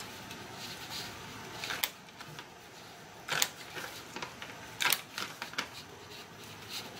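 A few sharp clicks from a hand rivet press setting an aluminum rivet through a nylon dog collar, about a second and a half apart.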